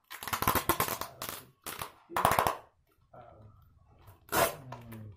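Cardboard shipping box being pulled open and its contents handled: bursts of rapid crackling and scraping of cardboard and packaging, loudest in the first two and a half seconds and again about four seconds in.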